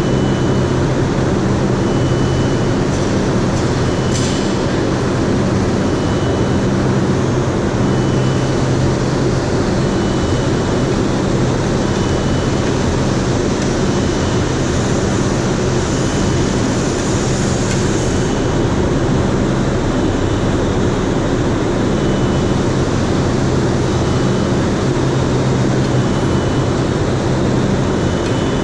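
Overhead crane working in a large industrial hall: a steady machinery din with a low hum, and a high warning beep repeating about every two seconds. A brief knock sounds about four seconds in.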